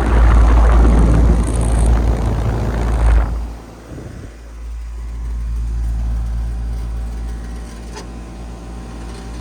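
A 2008 Payne air conditioner condenser running, a steady low hum from its compressor and GE commercial fan motor. For about the first three seconds a loud rushing noise covers it, then cuts off and the hum carries on alone.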